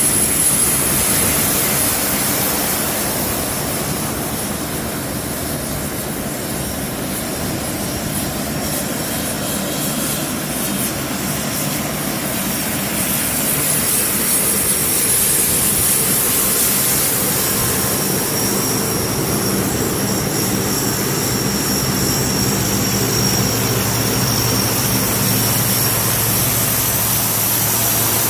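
Several C-130 Hercules turboprop transports, with both six-bladed and four-bladed propellers, taxiing with all engines running: a steady high turbine whine over a low propeller hum, which grows stronger in the last few seconds.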